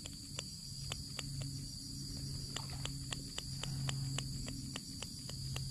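Steady high-pitched trill of a cricket and insect chorus, with a run of evenly spaced sharp clicks, about three or four a second.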